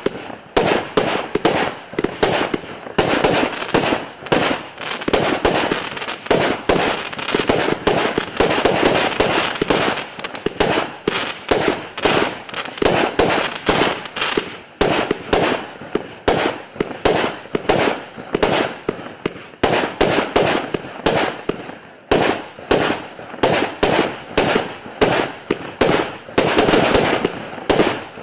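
Russian Fireworks "Lemon" P7038 consumer firework cake, 100 shots of 0.7 inch, firing a rapid, steady string of shots at about two to three a second, each launch followed by a small burst of stars.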